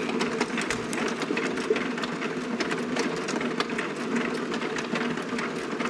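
Automatic mahjong table running its shuffler under the playing surface: a steady mechanical rattle dense with small clicks of tiles churning, with the odd tile set down on the table.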